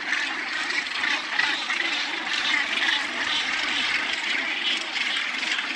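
A large northern gannet colony calling: a dense, unbroken din of many birds' calls blended together.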